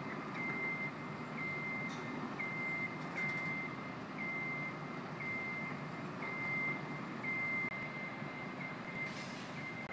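Travel alarm of a small self-propelled work platform beeping as it crawls along: one high tone repeating about once a second, over a steady hum of city background noise.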